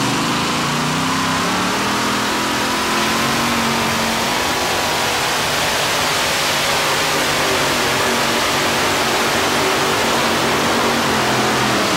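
Supercharged, alcohol-burning mini modified pulling tractor engine at full throttle, straining against the weight-transfer sled. The engine note climbs over the first few seconds, then holds as a steady, loud roar.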